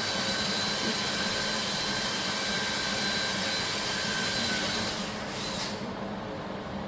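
Steady whir of machinery running, with a faint steady whine over it; the high hiss cuts out about six seconds in, leaving a lower hum.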